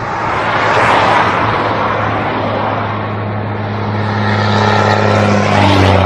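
Road vehicle noise: a steady engine hum, with a broad rush of passing traffic that swells about a second in and again near the end.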